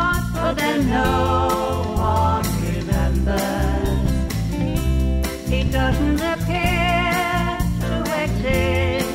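Pop-rock band music: a woman's voice singing long, wavering held notes over acoustic and electric guitars, bass and a steady drum beat.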